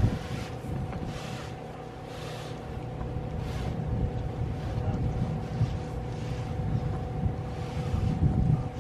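Wind rumbling on the microphone, with rustles of mainsail cloth recurring about once a second as a long fiberglass batten is worked out of its pocket; a faint steady hum underneath.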